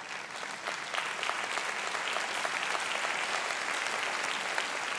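A large congregation applauding, many hands clapping in a steady, dense patter that builds within the first second and holds.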